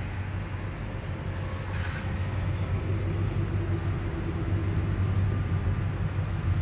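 Pickup truck engine running at low speed as it pulls slowly in, a steady low hum that grows gradually louder toward the end, over background traffic.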